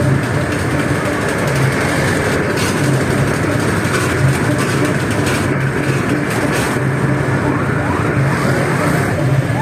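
Motor scooters and trucks running in slow street traffic, heard from the back of a moving scooter: a steady, dense engine and road noise.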